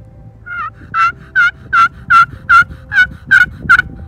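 Friction turkey call worked with a striker, sounding a run of about nine hen-turkey yelps at roughly two and a half a second, the first one faint.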